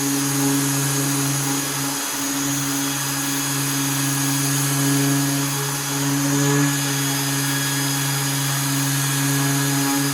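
Electric power tool running steadily at an even pitch, with a brief dip about two seconds in.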